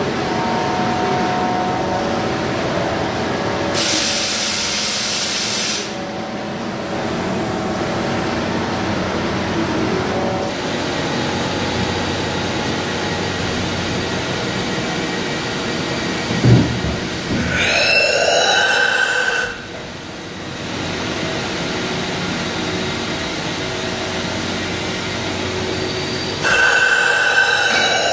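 Mori Seiki NHX 8000 horizontal machining centre running with a steady mechanical hum. A burst of hiss comes about four seconds in, a short knock around sixteen seconds, and rising and falling whines just after it and again near the end.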